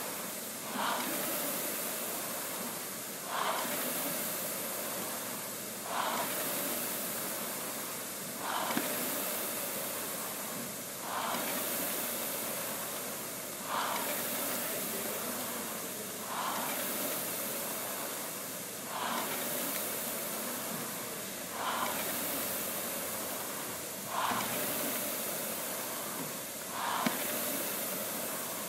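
Air rowing machine's fan flywheel whooshing, surging with each drive stroke about every two and a half seconds and fading away between strokes.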